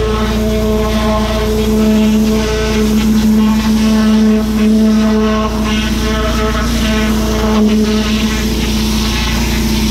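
Pressure washer running with a steady hum, its water jet hissing onto block paving.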